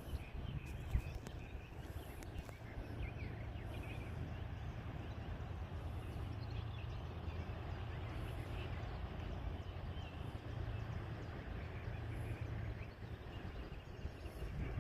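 Steady low drone of a passing inland vessel's diesel engine, with scattered short bird chirps over it.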